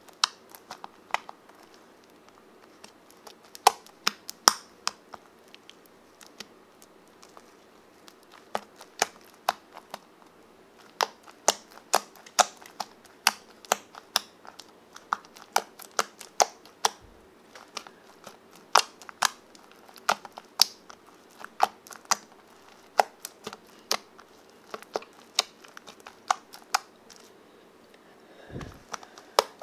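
Clear PVA-glue slime with Orbeez water beads being pressed and kneaded by hand, giving off sharp, irregular clicking pops, a few each second.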